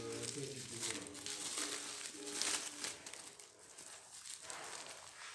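Plastic parcel wrap and packing tape crinkling and rustling as it is pulled off a pair of rubber sandals by hand. Under it, during the first two seconds, a faint steady pitched sound in the background holds a few notes, then fades.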